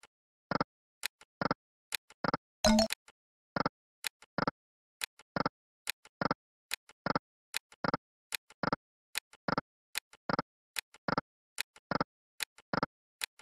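Sound effects of the EGT 'Burning Hot' online slot game during fast free spins: short electronic blips as the reels stop, about two a second, with a louder, brief win chime about three seconds in.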